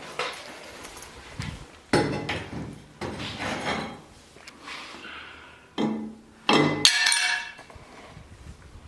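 Hard debris clattering and clinking in a series of separate knocks, some ringing like glass; the loudest and longest clatter comes about six and a half seconds in.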